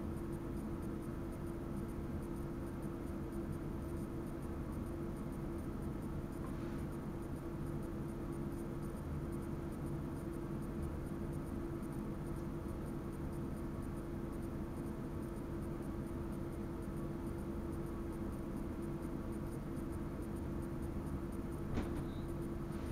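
Passenger train running, heard inside the driver's cab: a steady rumble with a constant hum over it, and a single sharp click near the end.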